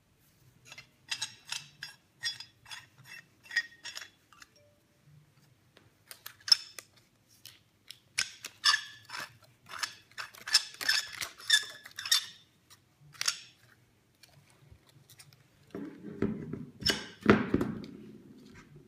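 Galvanized steel turnbuckle handled and its threaded eye bolts spun, giving runs of quick, light metallic clinks and rattles. Near the end come louder, duller knocks as the metal turnbuckle is laid on a wooden table.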